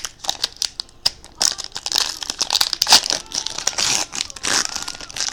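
Plastic wrapping crinkling and tearing in quick, irregular crackles as trading card packs are opened.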